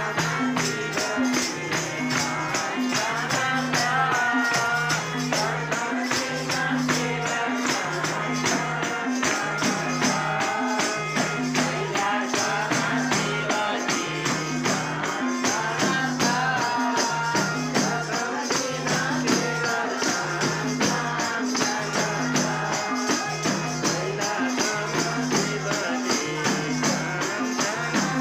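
Hindu devotional bhajan kirtan: voices singing a wavering melody over a steady jingling percussion rhythm and a repeating low beat.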